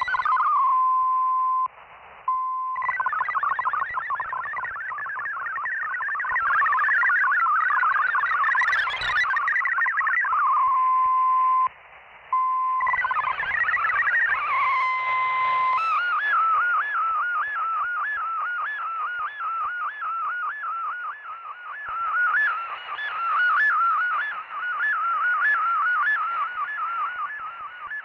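Shortwave receiver audio of a digital-mode data broadcast: a steady single tone, broken twice by brief dropouts, alternating with a rapid warble of shifting data tones. Past the middle it changes to a fast, even string of short arching tones, a different digital text mode.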